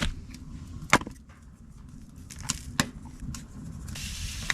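A few sharp knocks and clicks, spaced about a second or more apart, from cooking gear and food being handled. Near the end a steady hiss of food frying in hot oil begins.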